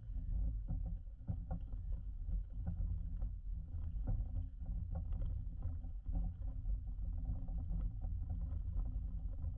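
2011 Jeep Wrangler Rubicon's 3.8-litre V6 running low and steady as the Jeep crawls along a rough off-road trail, with scattered clicks and knocks throughout.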